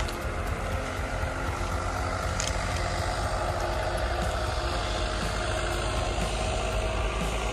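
Tractor engine running steadily, a low even drone.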